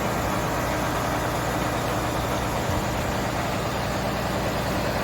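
Mobile crane's diesel engine running steadily at a constant speed.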